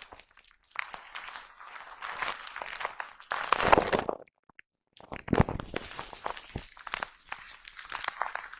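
A foam brush rubbed and dabbed against a microphone, giving close, crackly scratching and brushing. It builds to its loudest about three and a half seconds in, drops out for nearly a second, then starts again.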